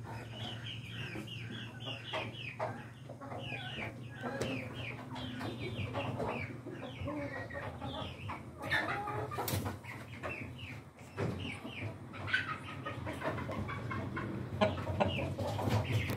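Flock of backyard chickens clucking, a stream of short, quickly repeated calls overlapping one another, over a steady low hum.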